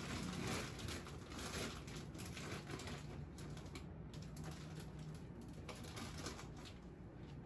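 Faint, irregular clicks, taps and rustles of grocery packages being handled and set onto fridge and freezer shelves.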